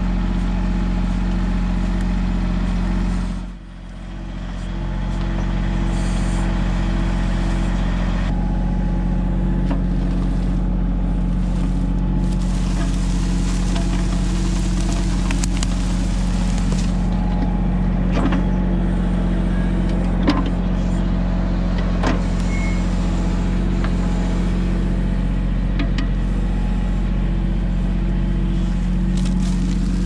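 Diesel engine of a Mahindra 1626 compact tractor-backhoe running steadily, dipping briefly in level about three seconds in, with a few light knocks in the second half.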